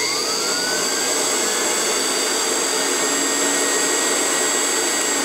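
Belt-driven tool post grinder on a lathe switched on for a test run: its electric motor spins up with a rising whine over about the first second, then runs steadily with a high whine and a whir.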